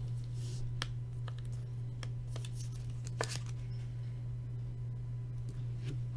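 Trading cards and a hard plastic card holder being handled on a table: soft slides with a few light clicks and scrapes, over a steady low hum.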